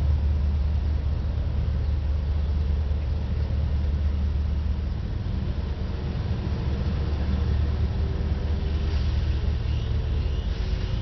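Low, steady rumble of a diesel freight locomotive in KCSM livery approaching slowly, with road traffic going by; a faint engine drone becomes audible about halfway through.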